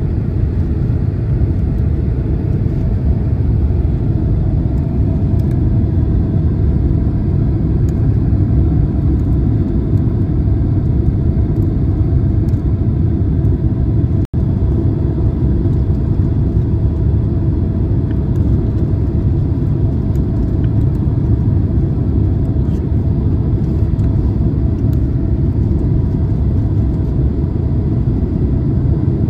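Steady low rumble of a Boeing 767-300's cabin on final approach, the engines and airflow heard from a window seat, with a faint steady hum above it. The sound cuts out for an instant about halfway through.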